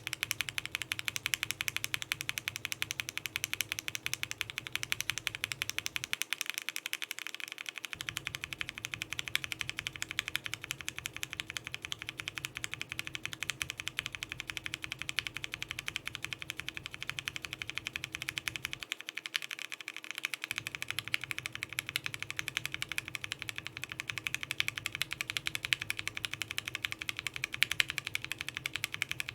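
Fast, steady typing on a Bakeneko60 mechanical keyboard with PBT keycaps and case foam, built with Gateron Ink linear frankenswitches: a dense run of keystroke clacks. The sound changes at two short joins, about 6 and 19 seconds in, as the switches go from Ink housing with Cream stem, to Ink with Milky top, to Ink with Cherry top.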